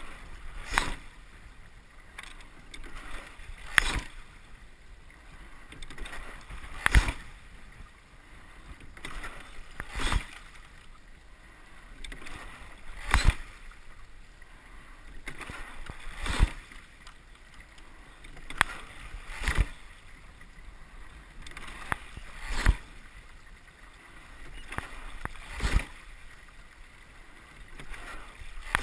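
Double sculling boat rowed at a steady low stroke rate: a sharp clunk of oars and oarlocks with every stroke, about once every three seconds, over a steady wash of water along the hull.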